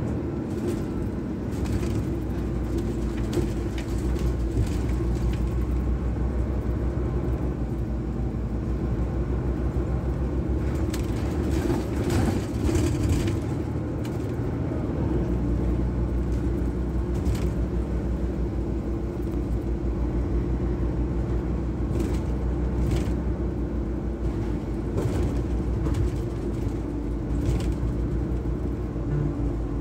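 Inside a moving articulated city bus: a steady drivetrain hum with road noise, the low hum growing stronger about halfway through, and scattered clicks and rattles from the cabin.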